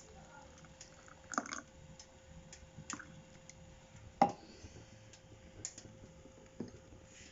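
Scattered light clicks and knocks of kitchenware being handled, with one sharper knock about four seconds in, over a faint steady hum.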